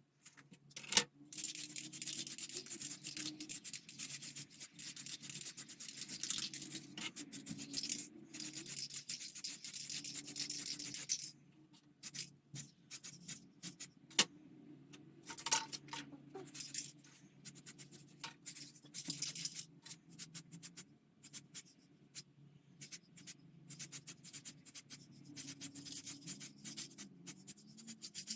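Aerosol spray paint hissing in one long spray of about ten seconds that cuts off suddenly. After it come scattered scratches and clicks of small plastic model parts being handled.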